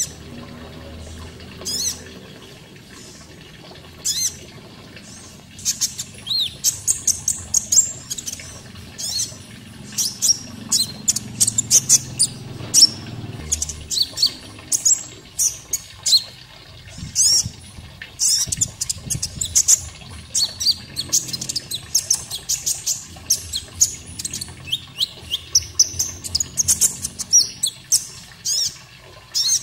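Konin songbird song: many quick, sharp high chirps and twitters, sparse for the first few seconds and then in dense rapid runs, over a steady background of running water.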